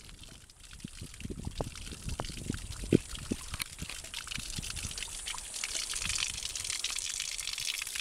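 Shallow stony creek trickling and running over rocks, the rushing hiss of the water growing louder over the second half, with a few light knocks, the sharpest about three seconds in.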